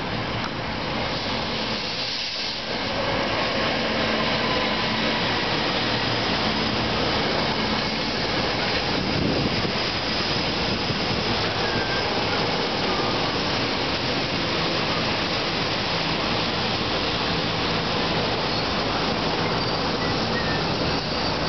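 SEPTA GE Silverliner IV electric multiple-unit train pulling into the station and rolling past close by: a steady loud rush of noise with faint humming tones underneath, growing louder about three seconds in.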